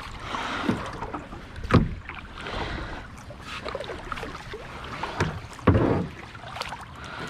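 Kayak paddle strokes splashing in lake water, with several sharp knocks spread through the strokes.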